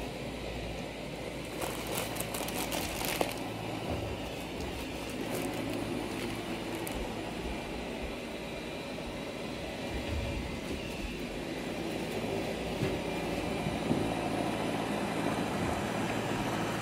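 iRobot Roomba 675 robot vacuum running on carpet: a steady motor and brush whir. A few clicks and rustles of handling come about two to three seconds in.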